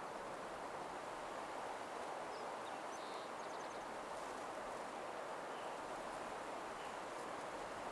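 Soothing nature ambience: a steady soft rushing noise with faint, high bird chirps over it. There is a short run of chirps about three seconds in and a few scattered ones later.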